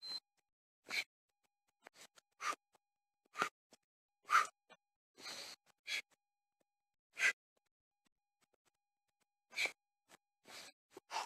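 Short, irregular bursts of sound, about one or two a second, from a person doing jumping jacks: hard exhalations and shoes landing on tarmac. A brief high beep sounds right at the start.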